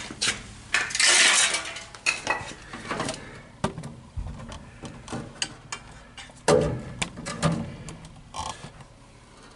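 Scattered light metallic clinks and taps, with a few longer scraping rustles about a second in and again around seven seconds.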